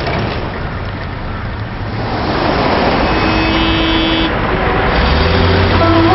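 City road traffic that grows louder as vehicles move off and pass, with engines running. About three seconds in there is a steady tone lasting about a second.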